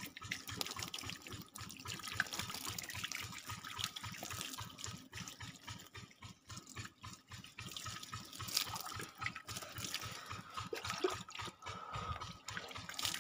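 Irrigation water trickling along earthen furrows between rows of vegetable seedlings, a steady low flow with small ticks and splashes.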